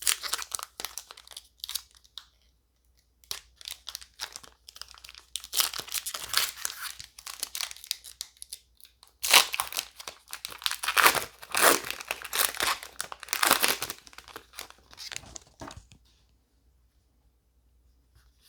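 Foil trading-card booster-pack wrapper crinkling and being torn, in several uneven rustling bursts that die away about two seconds before the end.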